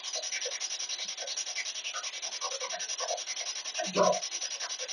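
SB7 spirit box sweeping through radio stations: fast, steady chopping static with brief snatches of broadcast sound. About four seconds in comes a louder fragment like a voice, which the investigators take as the reply "I don't".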